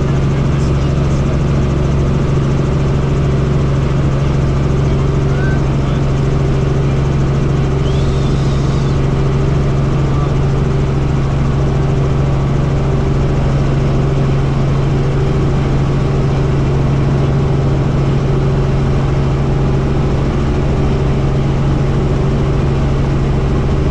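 Helicopter in flight: a steady, loud drone of rotor and engine with a strong low hum that does not change.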